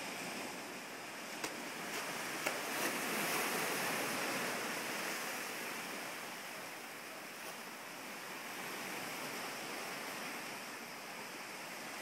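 Steady wash of ocean surf, with no distinct breaking waves, swelling slightly a few seconds in. Two faint clicks in the first few seconds.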